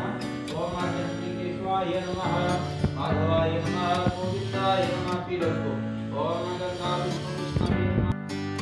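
Background music: a song with guitar and a melody line over a steady bass.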